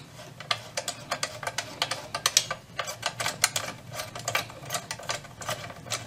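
Irregular light clicking and ticking from a Philips 206A valve radio's dial drive as its tuning shaft is turned back and forth by hand, the newly strung dial cord running over the pulleys and the tuning drum turning: the cord is being run in so its tension spring settles.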